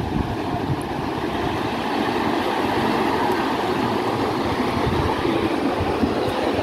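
Steady rumbling noise of wind buffeting the microphone over the wash of breaking surf.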